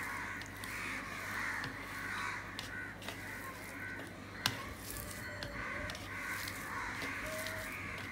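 Crows cawing repeatedly in the background, harsh calls overlapping one another, over a steady low hum. Soft sounds of a hand mixing rice with mashed bhorta on a steel plate, with one sharp click about four and a half seconds in.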